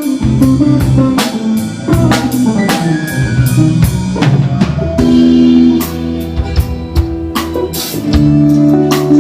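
A live band jamming: a drum kit keeps a steady beat with kick and rim hits under bass and guitar notes, and held chords come in about five seconds in.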